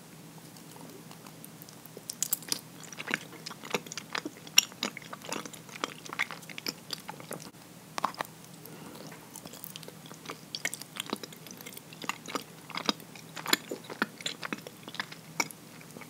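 Close-miked chewing of soft, sticky habutae mochi (rice cake): many quick mouth clicks and smacks, starting about two seconds in.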